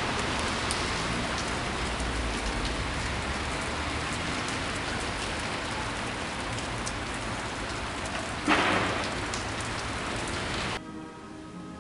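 Steady rain falling, with scattered separate drops pattering, and a brief louder rush about eight and a half seconds in. The rain cuts off suddenly near the end, giving way to faint music.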